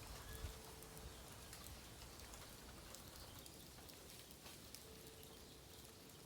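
Bamboo burning in a campfire, crackling faintly with scattered small ticks and pops, one a little louder about half a second in.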